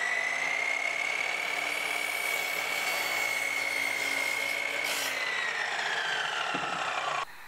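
Electric compound miter saw running and crosscutting a 1x6 board, its motor whine high and steady. About five seconds in the whine starts to fall as the blade winds down, and the sound cuts off abruptly near the end.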